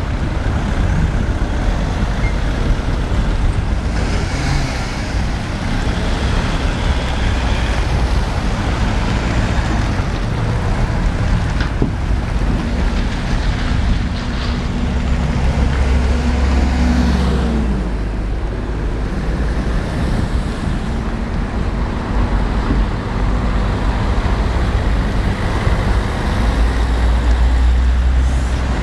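Road traffic at a busy junction: cars driving past close by, with a steady rumble. A city bus comes through about halfway in, its engine hum standing out for a few seconds.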